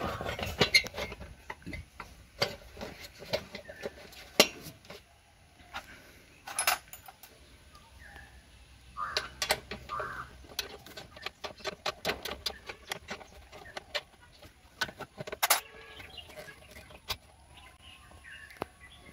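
Irregular metallic clinks and knocks of a spanner on bolts as the plastic engine cooling cowl of a two-stroke three-wheeler is fitted and tightened down.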